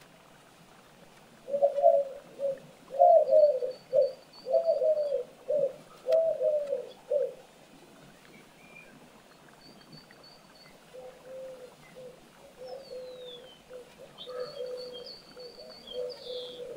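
A pigeon cooing in a run of low, repeated phrases, loud for the first few seconds, then fainter and more even from about eleven seconds in. Thin high chirps and a short falling whistle from small birds sound faintly behind it.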